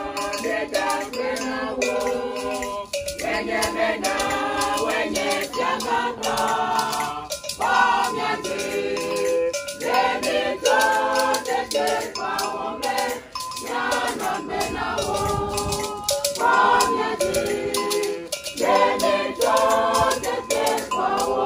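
A group of voices singing together, with a rattle shaken in time.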